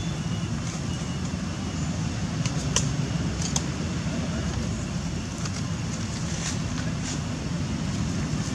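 Steady low outdoor rumble, with a few faint clicks about three seconds in and again near six and a half seconds.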